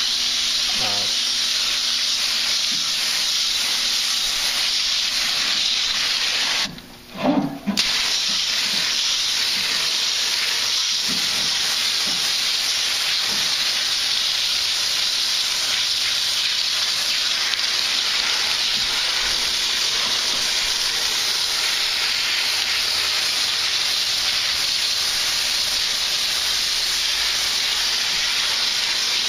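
Garden hose spray hissing steadily against an air-conditioner's outdoor condenser coil, flushing out grass packed into the fins. The spray cuts out briefly about seven seconds in, then runs on.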